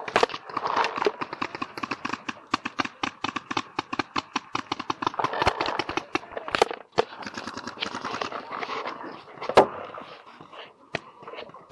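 Paintball markers firing in rapid, overlapping strings of sharp pops, several a second, with one louder crack about nine and a half seconds in.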